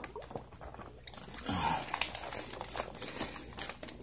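Wet plastic fish bag crinkling in a series of short, irregular crackles as it is handled.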